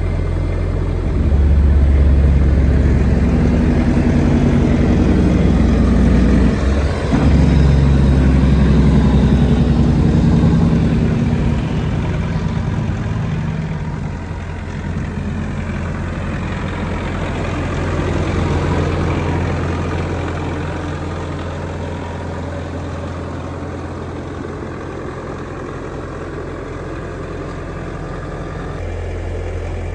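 Diesel engine of a Bobcat T650 tracked skid steer running. It is louder and deeper for the first ten seconds or so, then settles to a lower, steady run.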